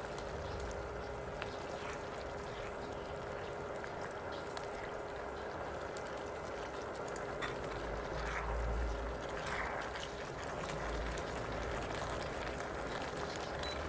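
Broth with broccoli and fried egg tofu simmering and bubbling in a pan while tapioca starch slurry thickens it, with a steady hum underneath.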